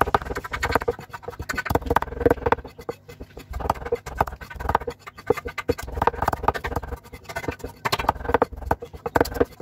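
Kitchen knife rapidly mincing lemongrass on a wooden chopping board: quick runs of blade strokes knocking on the wood, with brief pauses between runs.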